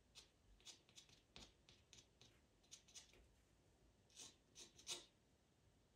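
Pastel pencil scratching on pastel mat paper in about a dozen short, quick strokes, faint, the loudest a cluster near the end.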